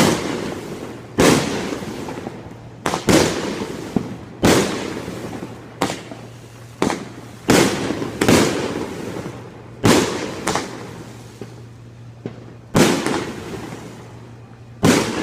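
Fireworks exploding: about a dozen sharp, loud bangs at irregular intervals, roughly one every second or so. Each bang trails off in a fading tail.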